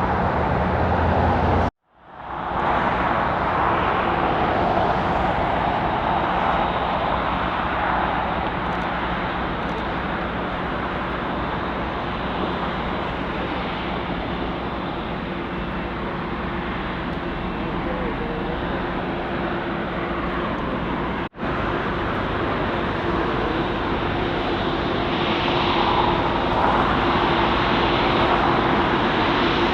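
Jet engines of a Boeing 747-8 freighter running at taxi power, a steady even engine noise with a faint held tone, growing a little louder near the end. The sound cuts out for a moment about two seconds in and again briefly later on.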